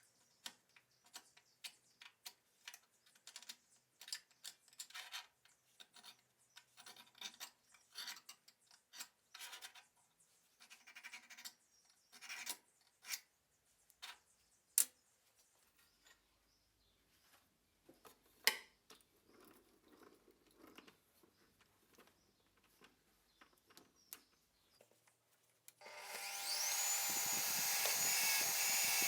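Irregular scraping, clicking and tapping of hand work with metal and tools at a workbench. Near the end a power tool's motor starts and runs steadily, much louder.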